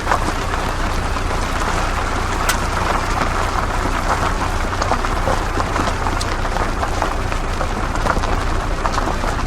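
Off-road 4x4 vehicle driving on a rough unpaved track: a steady crunch of tyres on gravel, with scattered small clicks of stones and a low rumble underneath.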